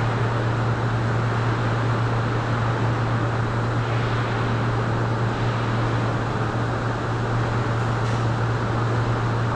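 Steady factory-hall drone: a constant low hum under an even rushing air noise, the sound of conveyor machinery and ventilation in a car body plant.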